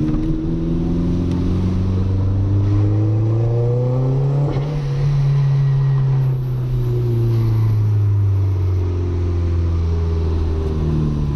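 Audi A3's 1.8-litre turbocharged 20-valve four-cylinder engine heard from inside the cabin, revs climbing for about four seconds and then falling away slowly.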